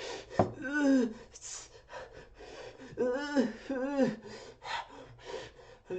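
A man gasping and crying out in pain as if he has burned his tongue on a hot drink: hissing breaths, a sharp click about half a second in, then three short rising-and-falling 'ah' cries, one near the start and two close together mid-way.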